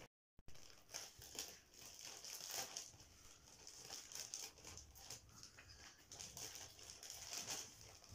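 Plastic Lay's potato-chip bag crinkling as it is handled and opened, an irregular rustle after a brief break in the sound at the start.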